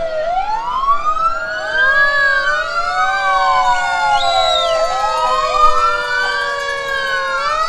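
Sheriff's patrol car siren wailing, its pitch rising and falling slowly, about two full sweeps.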